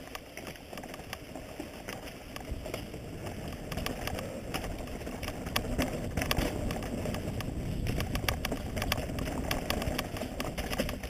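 Mountain bike riding fast down a rocky, rooty dirt trail, heard from a camera on the rider: a rumble of tyres and wind on the microphone with many rapid clattering knocks and rattles from the bike over the rough ground. It grows louder as the bike picks up speed, from about four seconds in.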